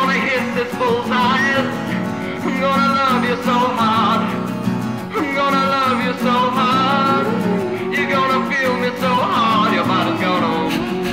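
A song: guitar accompaniment with a man singing long, wavering notes.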